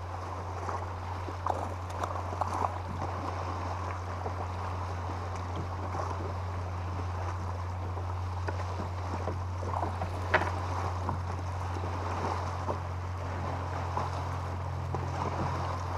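Boat motor running steadily with a low hum while trolling, over water splashing against the hull, with a few light knocks, the sharpest about ten seconds in.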